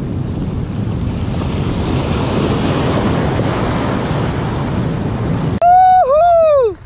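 Surf washing over a rocky shoreline, with wind on the microphone. About five and a half seconds in, the surf noise cuts out abruptly and a loud, high pitched tone holds, dips sharply, then swells and falls away for about a second.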